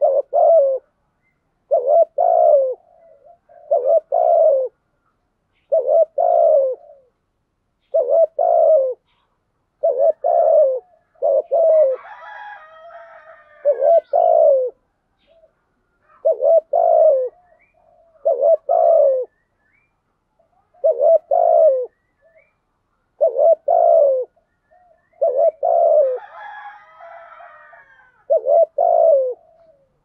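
Spotted dove cooing over and over in the urging 'thúc gù' style of a decoy dove, one short phrase about every two seconds. Fainter, higher chirping comes in twice, near the middle and near the end.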